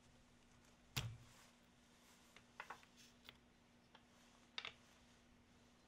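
Rubber dust boot on a National EZ6813 hammer drill's chuck being pried off with a screwdriver. There is one sharp snap with a dull thump about a second in, then a few light clicks and a quick double click as the parts are handled.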